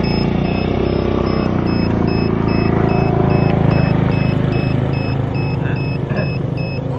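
A motor vehicle's engine running close by, swelling toward the middle and easing off again, over a steady high electronic beeping of about two or three beeps a second.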